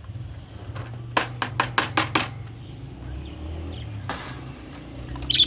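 About six sharp metallic clinks in quick succession, a short rustling burst a little later, and a brief budgie chirp near the end.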